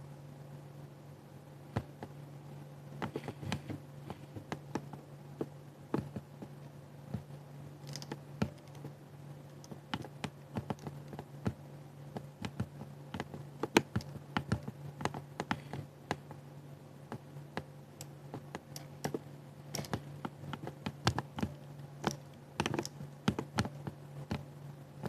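Typing on a 60% keyboard: irregular keystroke clicks, sparse at first and quicker from about ten seconds in, over a steady low hum.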